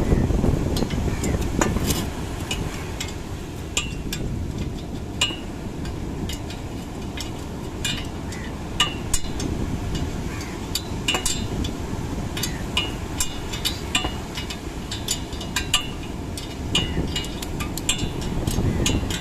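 Irregular sharp metallic taps and clinks of hand tools striking metal during a boat engine repair, several a second, over a steady wind-and-surf rumble.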